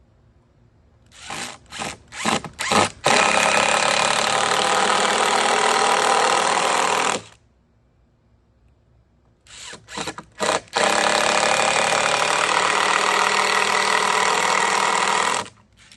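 Power drill driving screws into wood: a few short trigger pulls, then a steady run of about four seconds. This happens twice, with a pause between.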